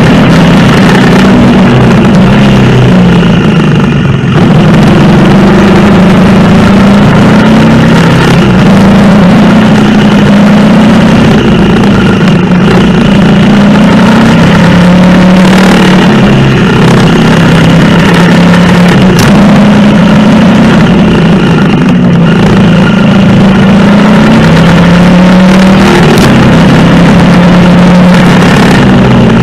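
Honda CRF250L's single-cylinder four-stroke engine running under way, its pitch rising and falling with the throttle.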